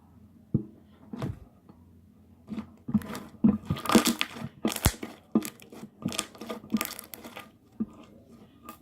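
Slime being squished and pressed by hand, giving irregular sticky pops and crackles that come thickest in the middle.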